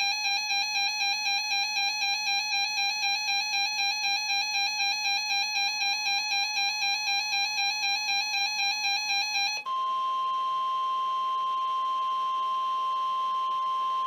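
A NOAA weather radio receiver's alert alarm beeping rapidly and evenly, about three to four beeps a second, for a flash flood alert. The beeping stops suddenly about ten seconds in, leaving the steady 1050 Hz National Weather Service warning alert tone sounding alone for about five seconds.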